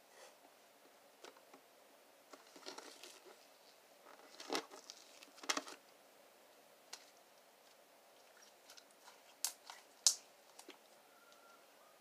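Butter slime being pressed and handled with fingers: faint, scattered squishes and clicks, with a few sharper ones around the middle and again near ten seconds in.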